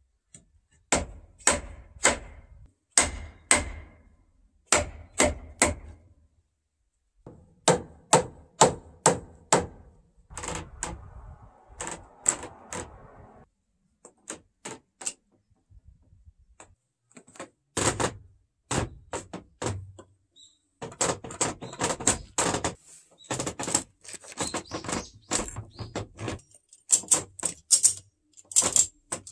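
Hammering on timber: sharp knocks in quick runs of three or four with short pauses between, as the wooden door-frame rails are knocked into place between the posts.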